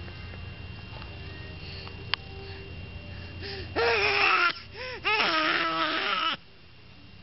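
Baby giving two loud, whiny cries, the first about four seconds in and the second, a little longer, about a second later, with a cordless phone handset in her mouth. A single sharp click comes about two seconds in.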